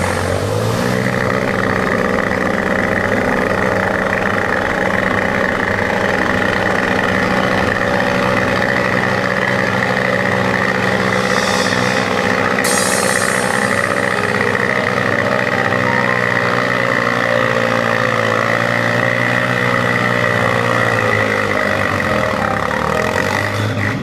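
Quad bike (ATV) engine running at a steady, even speed while wading through water, its pitch wavering slightly in the second half, with a brief hiss about halfway through.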